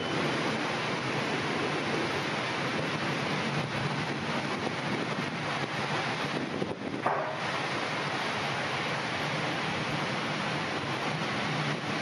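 Steady hiss of heavy rain and wind in a summer thunderstorm, briefly dipping about seven seconds in.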